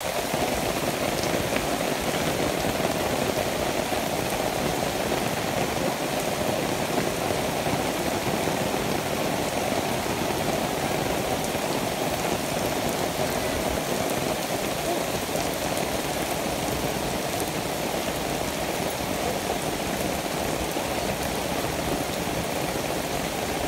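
Steady rain falling on grass, puddles and the tree leaves overhead: an even, unbroken hiss.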